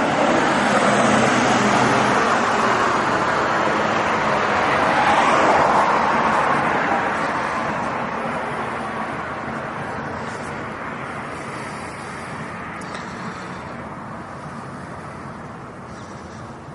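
A vehicle driving by: road and engine noise that swells to its loudest about five seconds in, then slowly fades away.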